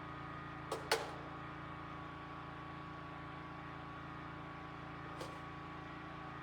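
Generator running steadily in the background, a constant engine hum. Two sharp clicks come just under a second in, and a fainter one about five seconds in.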